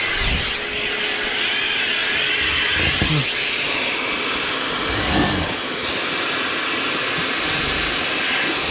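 HiKOKI RP250YD dust extractor running steadily, drawing air through a suction pad on plywood, with a few short lower bursts as holes are drilled.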